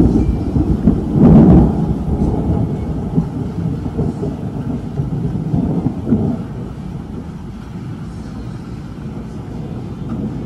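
Thunder rumbling, loudest about a second and a half in, then slowly fading away.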